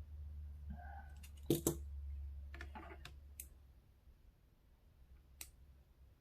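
Small sharp clicks and taps of tools being handled while soldering small wires, the loudest about a second and a half in, then a few scattered ones. They sit over a low hum that fades out after about three and a half seconds.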